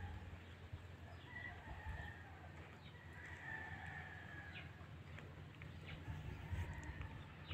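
Faint, drawn-out calls of a farmyard fowl, several times, over a low steady rumble.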